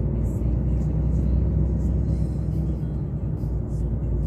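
Heavy truck's diesel engine running at low speed, heard inside the cab as a steady low drone.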